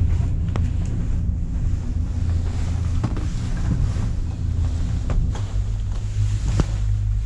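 Steady low rumble of a gondola cabin riding its cable, with wind on the microphone and a few light clicks or creaks about every one to two seconds.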